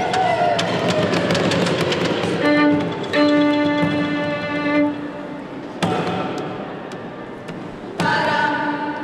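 Live music-and-movement piece played on and around upright pianos. It opens with a busy stretch of knocks and thumps, then held tones, then two loud chords struck on the pianos, each ringing and fading, about two seconds apart.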